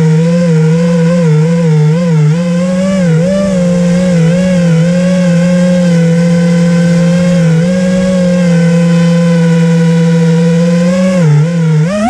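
FPV racing quadcopter's brushless motors and propellers buzzing as it holds near a hover, heard from its onboard camera, the pitch wavering slightly with small throttle corrections. Near the end the pitch swings sharply up and down in a quick burst of throttle.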